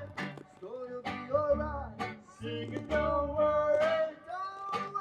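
Two singers performing a children's animal song with guitar accompaniment, the guitars plucked and strummed under the voices.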